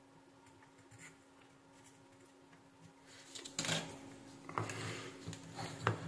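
Quiet at first. From about three and a half seconds in, irregular knocks, scrapes and rustles come as a bare printed circuit board is shifted on the workbench and multimeter test leads are picked up.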